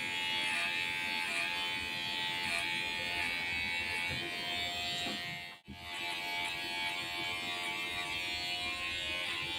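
Cordless electric hair clipper buzzing steadily as it cuts hair over a lifted comb, tapering a fade. The sound drops out for a moment a little past halfway.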